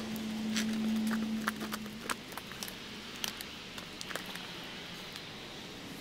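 Irregular clicks, knocks and scrapes of boots and hands on bark as a man climbs a tree, with a steady low hum underneath that stops about two seconds in.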